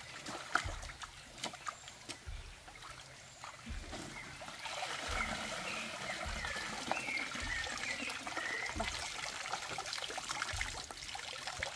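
Running water trickling and splashing, growing louder about four and a half seconds in.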